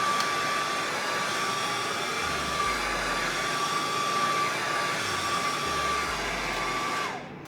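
Handheld blow dryer running steadily with a high whine over its airflow noise. It is switched off near the end, and the whine falls as the motor spins down.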